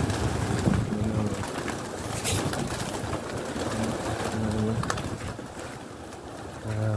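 A large flock of feral pigeons cooing, with a rustle of many wings as birds flap up and land around the feed.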